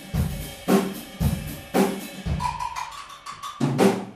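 Drum kit playing a slow groove: bass drum and snare drum alternate, with the snare struck about once a second. In the second half a quick run of lighter hits fills the gap before a last snare hit near the end.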